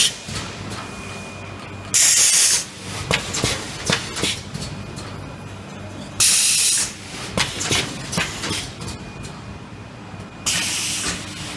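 PET bottle blow moulding machine running through its cycle: a loud hiss of compressed air three times, about four seconds apart, with clicks and knocks of the pneumatic mechanism and a low steady hum between.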